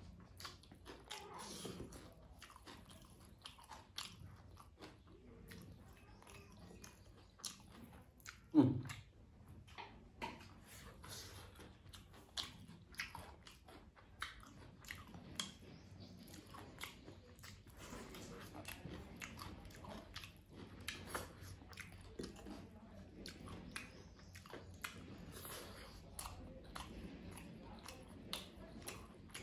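Close-miked chewing and lip-smacking of a person eating rice by hand, with many small wet mouth clicks. One short, louder, low sound that falls in pitch comes about eight and a half seconds in.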